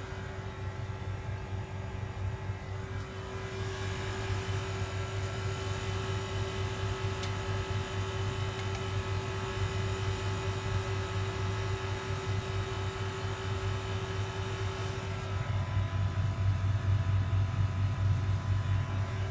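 Calorex 600 swimming pool heat pump running on its new R407C charge: a steady machine hum that gets a little louder in the last few seconds.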